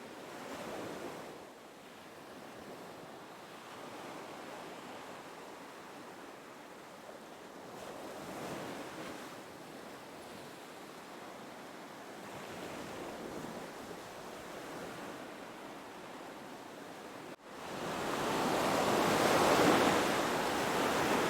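Ocean waves washing in gentle, recurring swells. About seventeen seconds in the sound cuts out for an instant, then returns as clearly louder surf.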